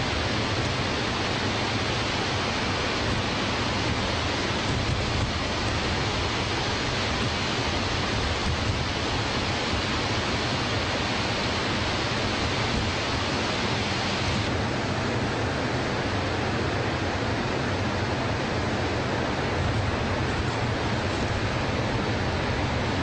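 Steady roar of Niagara Falls and the churning water below it, a continuous rushing noise with no let-up. About two-thirds of the way through the upper hiss turns a little duller.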